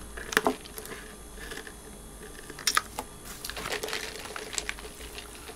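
Scattered light clicks and crinkles from fast-food paper packaging and a drink cup being handled while someone sips through a straw.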